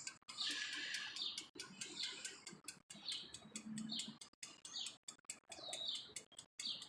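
Birds chirping faintly: short high chirps repeated every half second or so, with a brief hiss just after the start.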